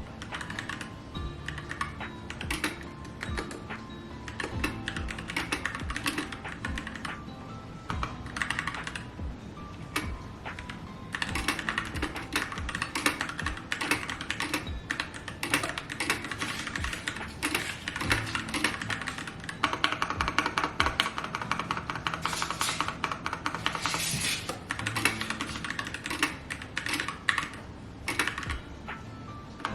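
Rapid typing on a keyboard, a dense run of key clicks that grows louder and busier about a third of the way in, over background music.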